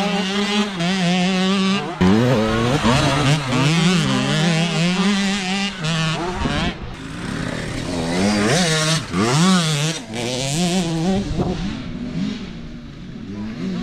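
Small children's dirt bike engines revving up and down while riding, more than one at once, the pitch rising and falling with the throttle; the engines get somewhat quieter near the end.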